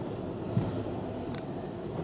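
Inside a car's cabin, driving slowly over a potholed dirt road: a steady low rumble of engine and tyres, with a dull thump from the wheels and suspension hitting a bump about half a second in.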